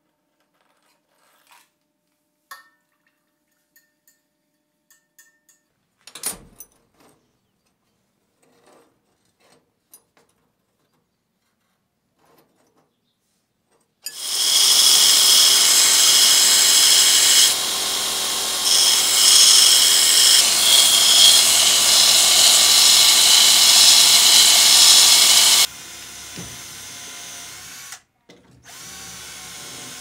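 A belt grinder grinding a small steel knife part against its abrasive belt: a loud, steady, high grinding whine that starts suddenly about halfway through and cuts off a few seconds before the end. After it, a cordless drill runs, stops briefly and runs again while drilling a small metal part. The first half holds only a few faint clinks and one sharper knock.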